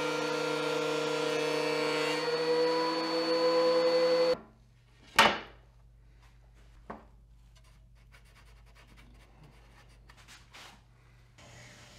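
Benchtop thickness planer running with a steady hum and whine. Its pitch rises slightly about halfway through, and then it cuts off abruptly. A single sharp wooden knock follows, then a fainter tap, and near the end a light rubbing of wood by hand.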